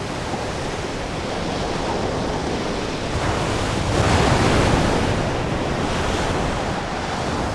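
Storm at sea: waves breaking and surging with wind. The surf swells louder about four seconds in for around a second, then eases back.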